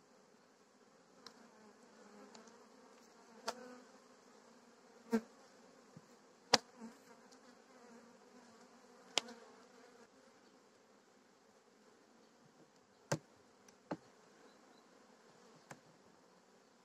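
Faint steady hum of a Carniolan honeybee colony in an opened hive, broken by about seven short sharp clicks as a metal hive tool knocks and pries against the wooden frames.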